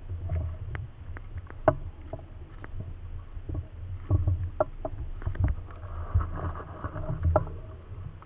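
Close handling and rustling noise: a low rumble with scattered clicks and light knocks.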